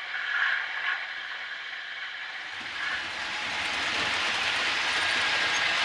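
Model train rolling along the layout's track, a soft rattle at first that grows into a louder, steady clatter of wheels on rail from about halfway through, with a thin steady whine coming in near the end.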